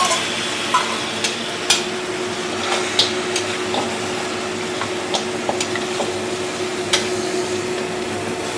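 Pork trotters sizzling in a stainless-steel wok with a little water just added, the water starting to boil. A metal spatula stirs them, with several sharp clinks against the pan over a faint steady hum.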